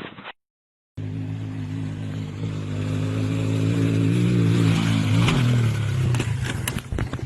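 Off-road vehicle engine running hard, its pitch creeping up and then dropping about five seconds in, followed by a string of sharp knocks and thumps near the end.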